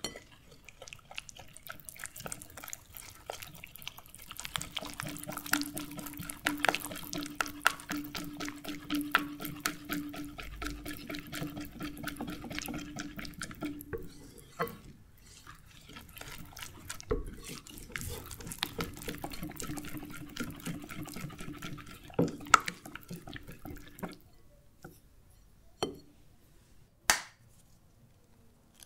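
A silicone-coated balloon whisk beating a wet batter of flour, water and oil in a glass bowl: rapid, dense wet clicking of the wires against the glass. It stops briefly about halfway, resumes, then thins to a few sharp knocks in the last seconds.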